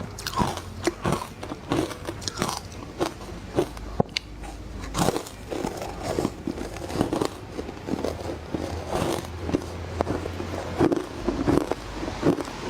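Frozen matcha ice being bitten and chewed close to the microphone: a fast run of crisp crunches, several a second.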